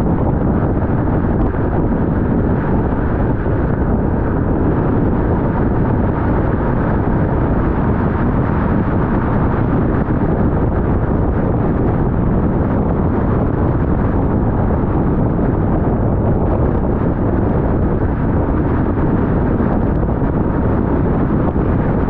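Steady road and wind noise of a car driving at highway speed, an even rush with no change throughout.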